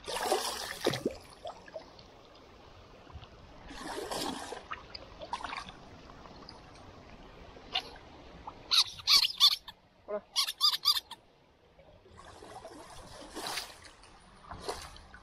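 Pet otter giving a quick run of high, squeaky chirps about nine to eleven seconds in, between short rushes of splashing water.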